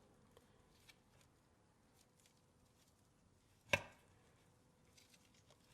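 Faint small ticks of parts being handled, then one sharp knock about two-thirds through and another at the end, as a thrust washer is worked into place inside a Dana 18 transfer case.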